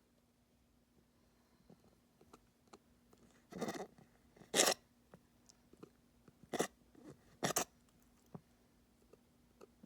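A pet coughing: four or five short, noisy coughs spread over about four seconds, the first a little longer than the rest.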